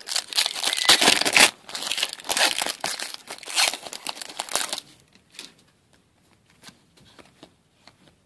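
A foil trading-card pack torn open and crinkled, loud and crackly for about five seconds. After that, only faint flicks as the cards inside are thumbed through.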